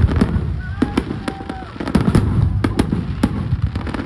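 Fireworks display going off in quick succession: many sharp bangs and crackles, several a second, over a continuous low rumble.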